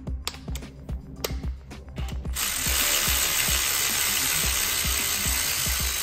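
Ratchet clicking in short runs as a cylinder-head bolt is run down. About two seconds in, a loud steady rushing, whirring noise starts and keeps going.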